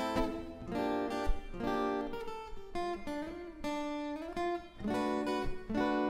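Background music on acoustic guitar, with plucked and strummed chords changing every second or so.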